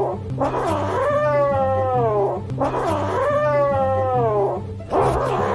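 Cat yowling: three long drawn-out meows in a row, each about two seconds, rising briefly and then sliding down in pitch, with low background music underneath.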